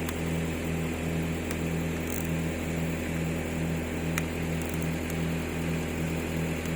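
A motor running steadily: a low hum with a throb that pulses about three times a second. A single sharp click about four seconds in.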